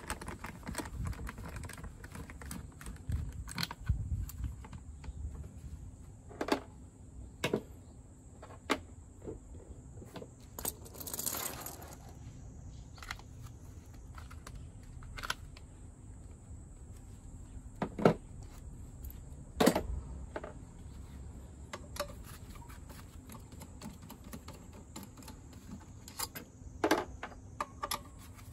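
Scattered small clicks and knocks of a screwdriver, screws and a plastic filter cover being handled while the cover is unscrewed and lifted off a scooter's transmission case, with a brief rushing noise a little before halfway.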